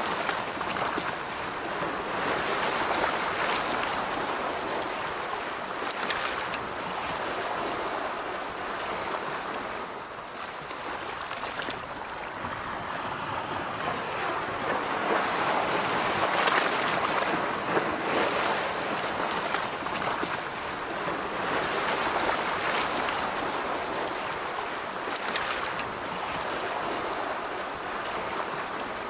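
Ocean surf washing onto a beach, a steady rush that swells and falls back every few seconds.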